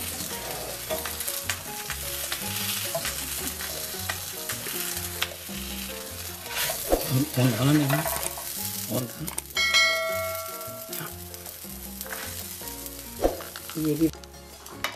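Quesadilla sizzling in oil on a black iron griddle, with sharp scrapes and clicks of a spatula as it is turned and slid off, louder about halfway through.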